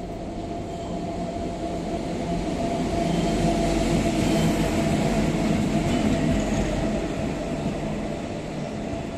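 Local passenger train pulling into a station: a steady rumble and hum of the carriages that swells to a peak about halfway through and eases off toward the end.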